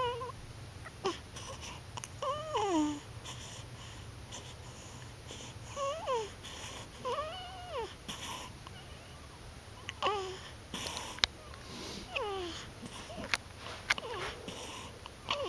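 A baby vocalizing: short cooing and squealing sounds that slide up and down in pitch, one every second or two, with a few soft clicks in between.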